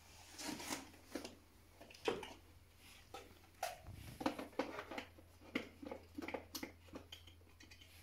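Scattered light plastic clicks and knocks as the dust bin of a Roidmi Eve Plus robot vacuum is handled and pressed back into its slot on the robot.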